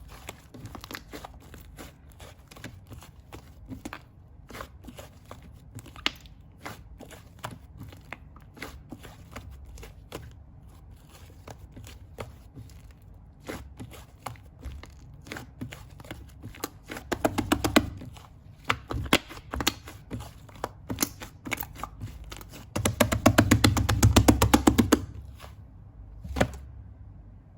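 Soft, fluffy clay slime being pressed and squished by hand, giving a steady stream of small sticky clicks and pops. Twice it breaks into rapid crackling pops, briefly at about 17 seconds and louder for about two seconds near the end.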